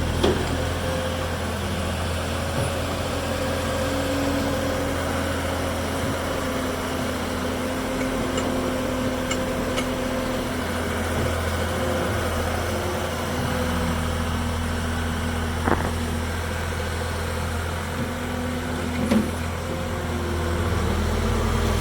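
Skid steer loader engine running steadily, with a faint drifting whine above it and a couple of brief knocks in the second half.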